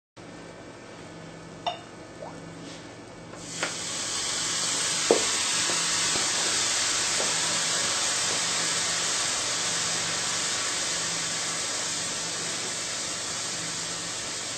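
Ice cubes melting on a hot plate: a steady sizzling hiss that swells in about three and a half seconds in, with a few sharp cracks and pops from the ice early on.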